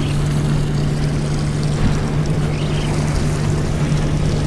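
Suzuki outboard motor idling with a steady low hum, over a constant hiss of wind and water.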